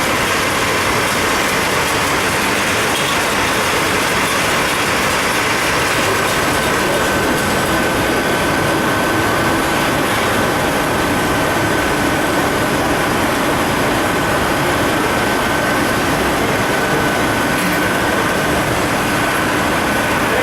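Powerskinner MSA 5120 LS4 sleeve-labelling machine running: a loud, steady mechanical noise, with a thin high whine coming in about six seconds in.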